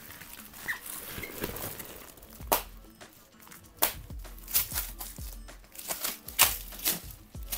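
Shiny foil gift wrap crinkling and tearing as a wrapped picture frame is unwrapped, in a series of irregular sharp rustles that grow busier after the first couple of seconds.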